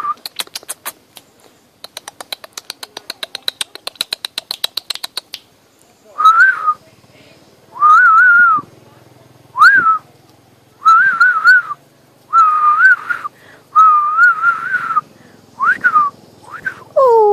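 A person whistling to call a puppy: short, warbling whistled notes repeated about eight times, after a fast run of clicks, about nine a second, in the first five seconds. Near the end a puppy starts to whine.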